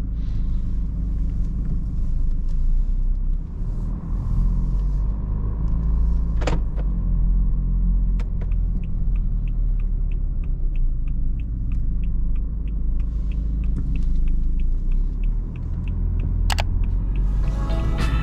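Steady low rumble of engine and road noise inside the cabin of a moving 2013 BMW 320d xDrive Touring with a 2.0-litre four-cylinder diesel. About a third of the way in a light regular ticking starts, about three ticks a second, and runs for several seconds. There are also two sharp clicks, one before the ticking and one after it.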